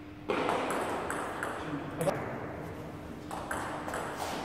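Table tennis rally: the ball clicking sharply off the rubber bats and the table, a quick irregular run of ticks about half a second apart.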